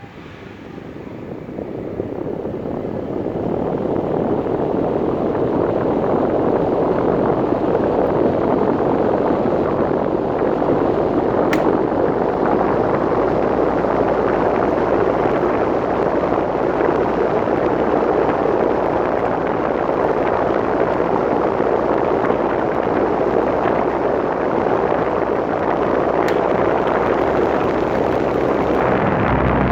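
KOENIC electric fan running with a steady rushing air noise. It grows louder over the first few seconds, then holds even, and a low hum comes in near the end.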